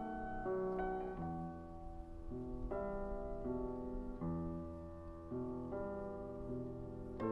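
Slow piano music of held chords that change about once a second.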